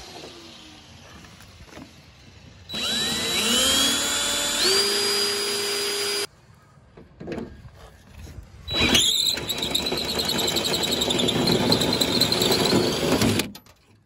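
Power drill drilling out the riveted mounts of a door lock actuator on a car's inner door panel, in two runs. The first lasts about three and a half seconds, starting nearly three seconds in. The second lasts about five seconds, after a short pause. Each starts with a rising whine as the motor spins up.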